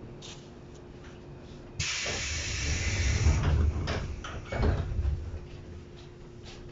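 JR East 115 series electric train releasing compressed air: a sudden hiss starts about two seconds in and lasts about two seconds, over a low rumble and a steady hum, with a few knocks just after, as the train prepares to depart.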